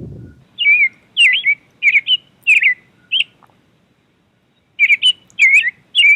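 Recorded bird-chirp sound effect: about a dozen quick, swooping chirps in two bursts, with a pause of over a second between them.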